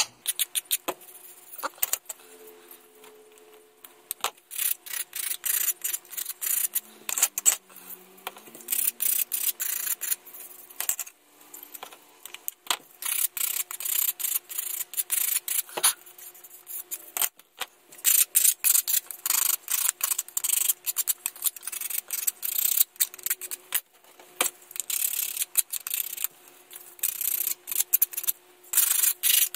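Hand sanding tool rubbed back and forth against a plastic model-kit part, smoothing down trimmed flashing: quick rasping strokes in runs of a few seconds with short pauses between.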